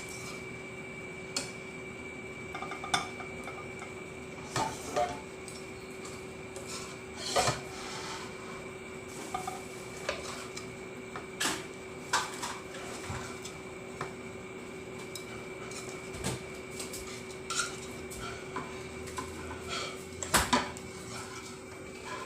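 Spoon and utensils clinking and knocking against a pot and dish now and then as cooked chicken is served out into a container, over a faint steady hum.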